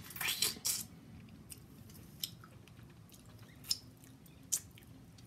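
Wet mouth sounds of a person eating a saucy seafood boil and licking sauce from their fingers: a quick cluster of chewing and lip-smacking clicks in the first second, then four single sharp smacks spread through the rest.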